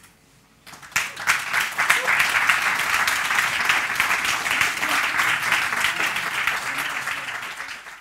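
Audience applauding at the end of a talk: clapping breaks out about a second in, holds steady, then begins to die away near the end.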